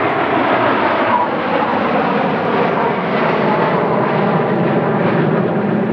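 BAE Hawk T1 jets flying overhead: a loud, steady jet engine roar that grows deeper and fuller near the end.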